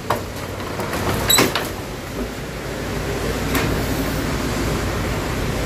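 Elevator in an old feed mill: a sharp metallic clank about a second in, then a steady low rumble as it runs.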